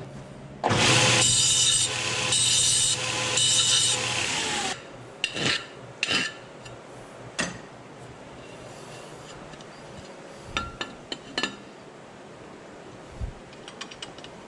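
Grinder running against a steel stovepipe for about four seconds, then switched off and winding down. A few short metal clanks and clicks follow as the pipe is handled and set into a bead roller.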